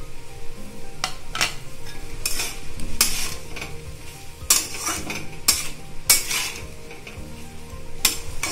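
Metal spatula scraping and stirring chopped tomato and capsicum in a metal kadai, about eight scraping strokes at irregular intervals, with the oil sizzling under the vegetables as they fry.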